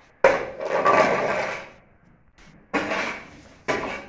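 Long-handled manure scraper dragged across a wet concrete barn floor in three strokes: a long scrape a moment in, then two shorter ones near the end, each starting sharply.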